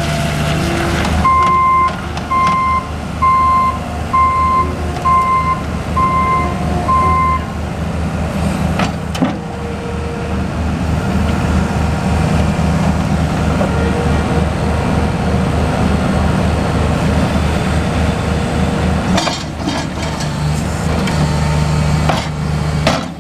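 Cat 226B skid steer loader's diesel engine running as the machine drives and turns, with its backup alarm beeping about eight times, roughly one beep every three-quarters of a second, starting about a second in and stopping after about six seconds.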